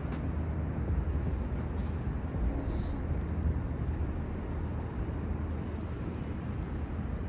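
Street ambience with a steady low rumble of city traffic.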